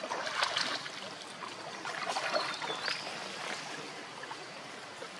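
Water trickling and lapping, with a few brief small splashes about half a second in and around two seconds in.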